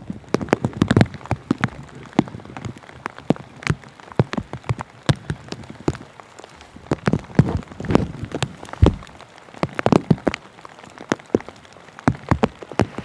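Large drops of rain tapping irregularly on a surface close to the microphone, several sharp taps a second over a steady hiss.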